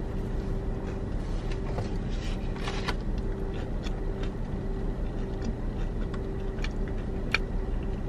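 Steady hum of a parked car's idling engine, heard from inside the cabin, with a few faint clicks from chewing and sipping through a straw.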